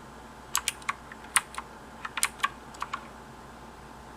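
Keys of a Jelly Comb 87-key mechanical keyboard being pressed one at a time at an uneven pace: about ten crisp clicks over two and a half seconds, then a pause.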